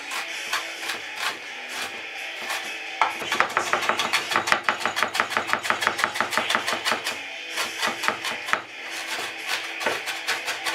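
Kitchen knife chopping diced onion on a wooden chopping board. Scattered taps at first, then about three seconds in a fast run of about seven or eight chops a second lasting several seconds, slowing, then quickening again near the end.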